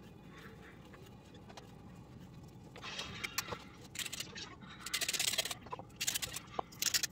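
A hand-twisted spice grinder grinding over a glass bowl in several short, gritty bursts, starting about three seconds in.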